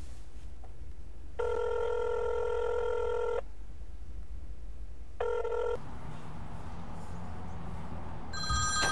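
Telephone ringing heard through a handset: a steady ringback tone lasting about two seconds, then after a pause a second one that cuts off short. Near the end a phone's ringtone starts up, a higher, brighter set of tones.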